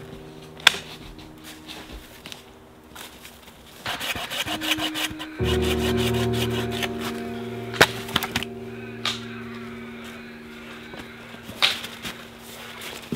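Dry dead branches snapping and crackling as they are broken by hand for firewood: a dense burst of twig crackling about four seconds in and a handful of single sharp cracks, over background music.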